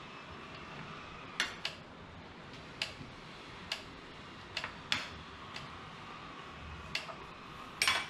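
Kitchen utensils clicking against dishes and a cutting board as diced vegetables are spooned into bowls and chopped: about ten sharp, irregular clicks, with a double click a little before the end.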